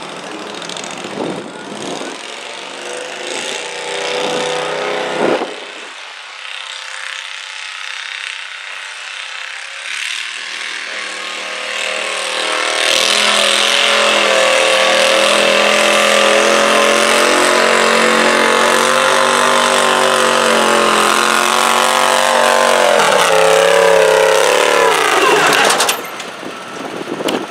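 International Harvester garden tractor engine pulling a weight-transfer sled. It runs moderately at first, then goes loud and steady at full throttle about halfway through. Near the end the pitch sags as it labours under the growing load, and then it drops off.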